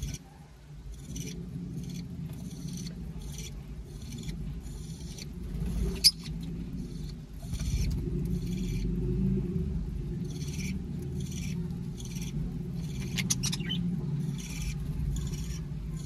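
A flock of small parrots (lovebirds, budgerigars and cockatiels) chattering with short, high chirps and squeaks, several a second, over a steady low rumble; one sharp click about six seconds in.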